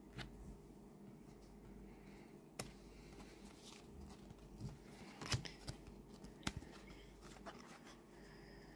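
Tarot cards being handled: faint scattered clicks and soft rubs of card stock as cards are slid off and laid down, with a few sharper snaps spread through.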